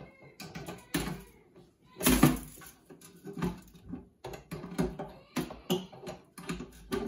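Nuts rattling in a metal mesh rotisserie basket, with repeated clinks and clanks as the basket is handled and fitted into an air fryer oven; the loudest clank comes about two seconds in.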